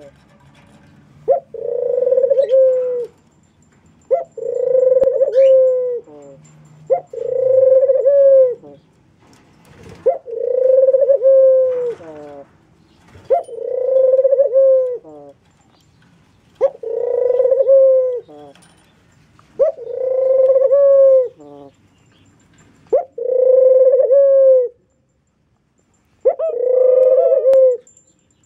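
Collared doves cooing: a low, drawn-out coo repeated about every three seconds, nine times or so, each opening with a short note and ending in a slight downward slide.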